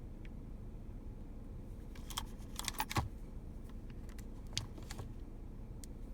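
Light clicks and taps of small hard objects being handled: a quick cluster about two to three seconds in and a couple more around five seconds, over a low steady background rumble.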